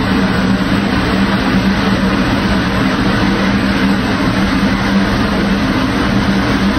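Kitchen range hood exhaust fan running steadily: a low motor hum under an even rush of air.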